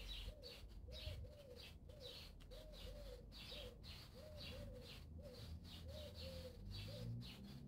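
Faint birds calling: short, low cooing calls in ones and twos, about every second, with quick high chirps in between.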